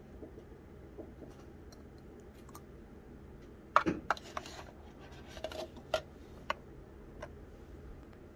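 Sharp clicks and taps of a gold metal lipstick case being handled, with its cap pulled off: a loud cluster of clicks about four seconds in, then a few single clicks over the next three seconds.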